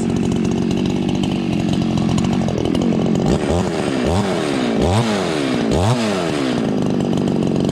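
Ported Husqvarna 51 two-stroke chainsaw idling as it warms up, then blipped four times, the revs rising and dropping back about once a second before it settles to idle again.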